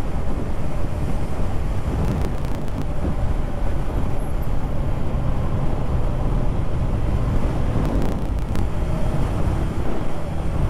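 Motorcycle riding along at a steady pace: the engine running under a steady rush of wind and road noise on the bike-mounted microphone.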